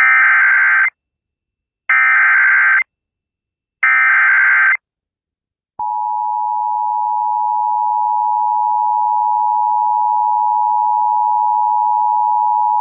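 Emergency Alert System SAME header: three bursts of data tones, each about a second long with a second's gap between. About six seconds in, the steady two-tone EAS attention signal starts and holds. Together they announce the severe thunderstorm warning that follows.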